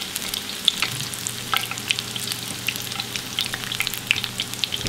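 Battered fish strips deep-frying in hot oil in a skillet: a steady sizzle with many small crackling pops.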